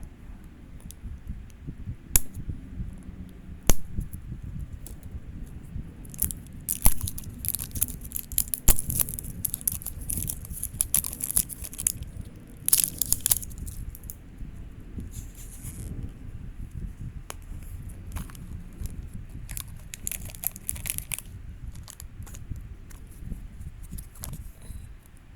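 Hands tearing open and crinkling plastic blind-bag packaging, with scattered sharp clicks and taps. The crinkling comes in bursts, thickest through the middle.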